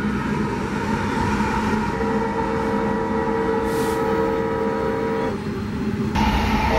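Locomotive horn held on a steady chord over the rumble of a passing train. The horn stops about five seconds in, and the sound changes abruptly just before the end.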